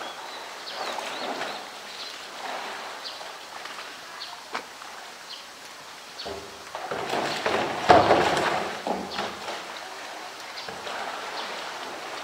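Water sloshing and splashing as a polar bear plays with a floating plastic drum in its pool, swelling into a louder burst of splashing about seven to nine seconds in.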